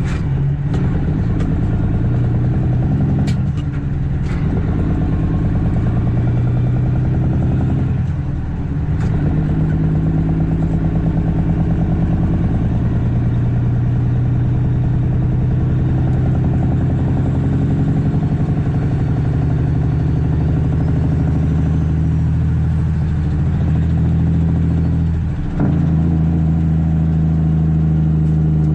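CAT C13 diesel engine of a Kenworth W900B dump truck pulling steadily, its tone dropping briefly about three times as the truck works up through the gears.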